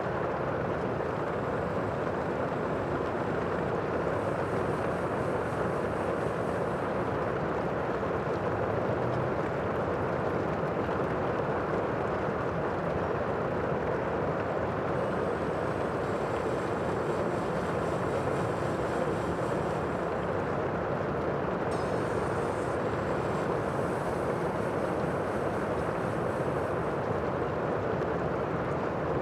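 Sea ambience: a steady, even rush of water and wind, with no separate wave breaks standing out.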